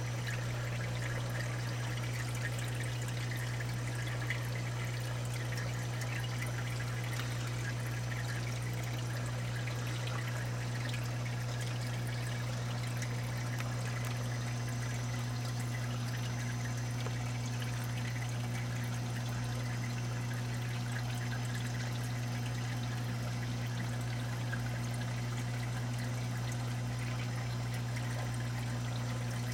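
Saltwater aquarium's circulating water trickling and pouring steadily in the sump and refugium, over a steady low hum.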